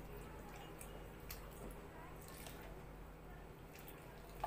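Faint eating sounds: soft wet clicks and squishes of chewing and of fingers tearing naan and scooping curry, over a low steady hum. A short, louder sound comes right at the end.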